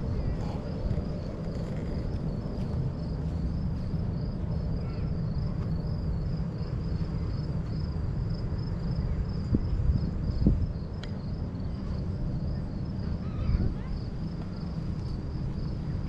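Crickets chirping in a steady, high, evenly pulsing trill, over a continuous low rumble, with a few short knocks about ten seconds in.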